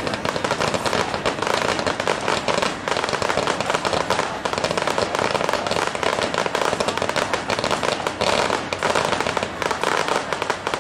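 Fireworks going off in a dense, continuous barrage of rapid bangs and crackles.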